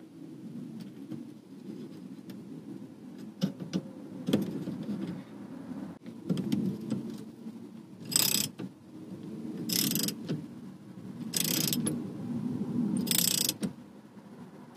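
Socket ratchet tightening the steering-column nut on a Mazda MX-5 NB's steering-wheel boss: a few scattered clicks, then four bursts of ratchet clicking about every second and a half as the handle is swung back and forth. A low steady hum runs underneath.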